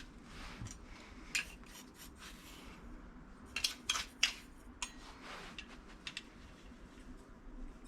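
Kitchen utensils and dishes being handled during food prep: scattered light clicks and clinks, a quick cluster of them about halfway through, with some soft rubbing and scraping between.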